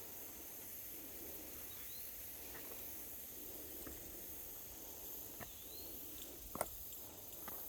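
Quiet outdoor ambience in which a small bird chirps faintly twice, a few seconds apart, with a few soft clicks in the second half.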